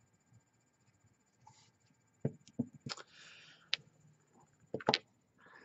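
Polished crystals, a carnelian egg and rose quartz stones, set down one after another on a hard tabletop: a handful of sharp knocks and clicks from about two seconds in, with a short scrape after the third.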